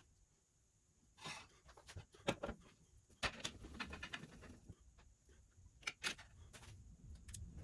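Short, irregular rasping and scraping strokes of hand filing and cleanup on the bottom of a cast epoxy-resin shift knob, with a few light clicks of handling.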